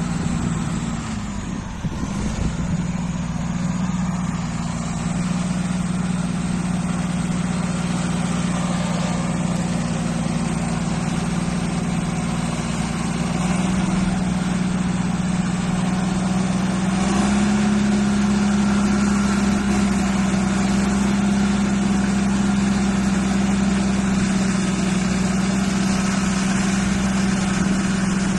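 Caterpillar 518 wheeled skidder's diesel engine running with a steady, strong drone. It picks up a little in revs about halfway through and again a few seconds later.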